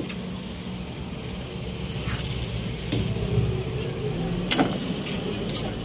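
A metal ladle stirring pork and pig's blood in a wok, scraping and knocking against the pan with several sharp clinks in the second half, over a steady low hum.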